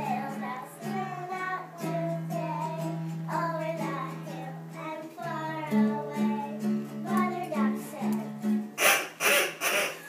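Children singing a song over instrumental accompaniment with long held low notes. Near the end, a few loud noisy bursts cut across the singing.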